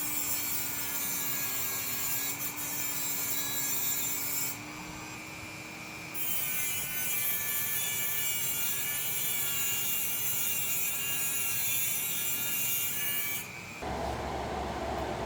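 Electric drill cutting into metal while boring out the clutch-housing rivets of a 1979 Honda CBX, running in two long stretches of about four and seven seconds with a short pause between them. Near the end it gives way to a lower, steady hum.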